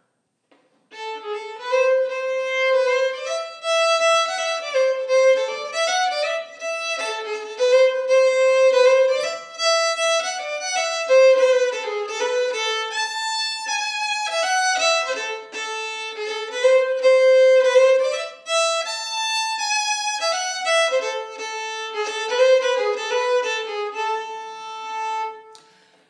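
Solo violin playing a melody of bowed notes, starting about a second in.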